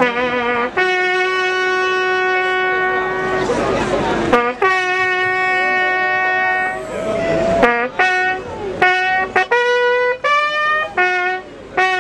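Military bugle sounding a funeral call: long held notes with short breaths between them, and a run of quicker, shorter notes about two-thirds of the way through.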